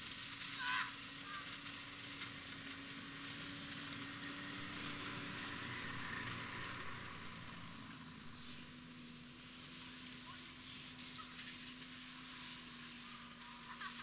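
Steady hissing noise with a faint low hum underneath.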